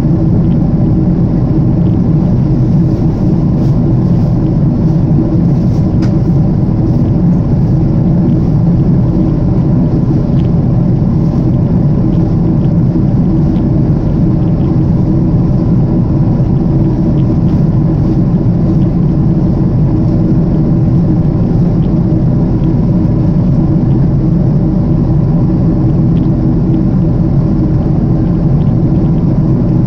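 Steady cabin drone of a jet airliner in flight: engine and rushing-air noise heard inside the cabin, an even low hum with a few faint steady tones and no change in pitch.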